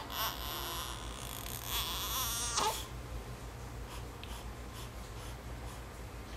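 A two-week-old baby's short fussy vocal sounds, one right at the start and another at about two and a half seconds, then quieter.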